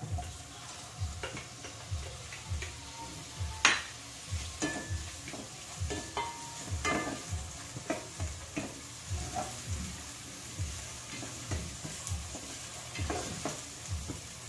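Wooden spatula stirring and scraping ground pork, onion, garlic and tomato sautéing in a pot, knocking against the pot about twice a second over a light sizzle of frying. One sharp knock stands out about three and a half seconds in.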